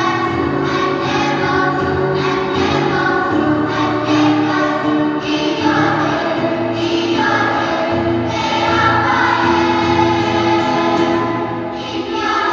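A school children's choir singing in harmony, holding long sustained notes that change chord every second or so.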